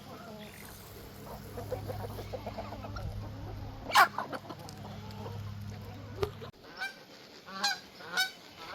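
Farm poultry calling: a quick run of clucks, one loud honking call about four seconds in, then three more honks near the end.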